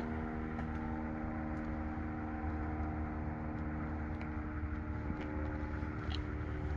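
Steady machine hum: something running evenly, with a low drone and several steady tones above it.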